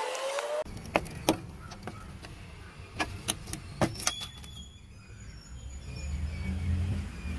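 An angle grinder whines for the first moment, its pitch shifting, then cuts off suddenly. A handful of sharp clicks and knocks follow over a low rumble that grows louder near the end.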